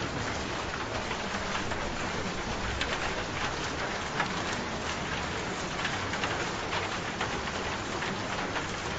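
Steady rain falling, with many separate drops pattering on a surface.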